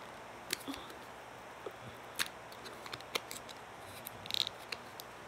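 Scattered small clicks and taps from handling a small jar of pigment powder while its peel-off seal is opened, with a brief cluster of clicks and a short high scrape near the end.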